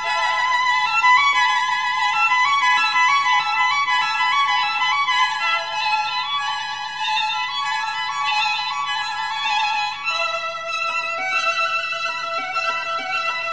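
Background music: a violin melody of held, stepping notes over a steady low accompaniment, moving to a lower register about ten seconds in.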